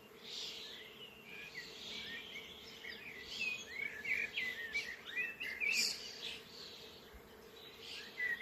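Birds singing: many short, quick chirps and twitters, busiest in the middle, over a faint steady background hiss.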